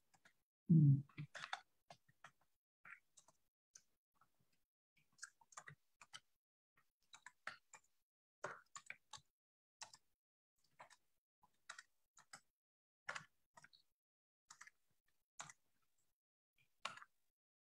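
Quiet, scattered clicks and taps at irregular spacing, with one louder low thump about a second in.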